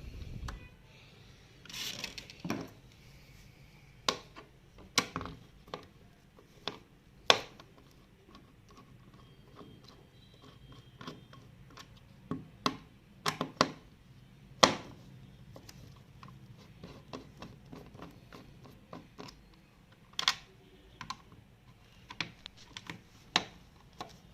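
Irregular clicks, taps and light knocks of hands handling PC components and their packaging, with a few louder sharp clicks.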